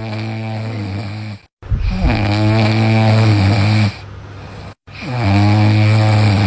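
Sleeping French bulldogs snoring: three long, low snores, each about two seconds and steady in pitch. The first is cut off short at an edit.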